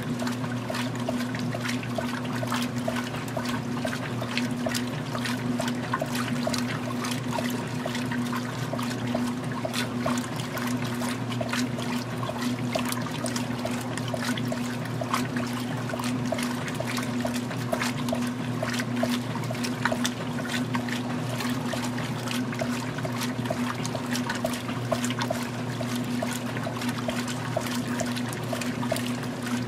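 Magic Chef 20-pound top-load washer agitating a load in the wash stage: water sloshing and splashing in the tub over the steady hum of the motor.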